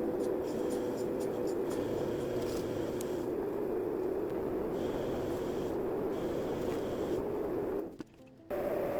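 Mini lathe running while a cutting tool turns down the end of a steel workpiece: a steady scraping cutting noise over the motor, with a brief drop-out about eight seconds in.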